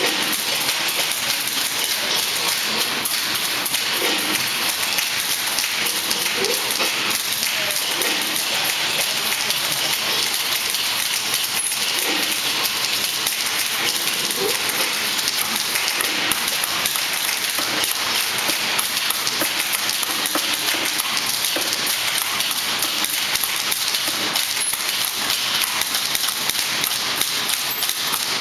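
Many typewriters being typed on at once: a dense, continuous clatter of keystrikes that blurs into an even patter.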